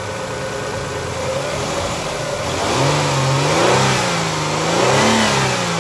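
Toyota 1MZ-FE 3.0 V6 engine running on flushing oil, idling at first, then revved up and down a few times from about three seconds in.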